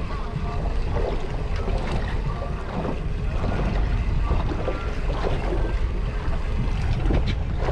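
Wind buffeting the microphone over a steady rumble, with choppy sea water lapping against the side of a small boat.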